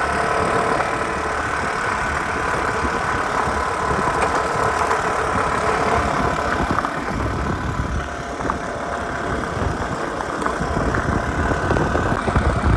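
Motorbike engine running steadily during an off-road ride, with a rough, uneven low rumble underneath.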